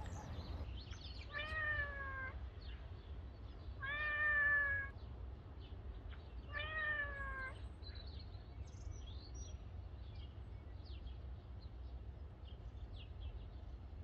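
A cat meowing three times, each meow about a second long and falling slightly in pitch, over a low steady background rumble.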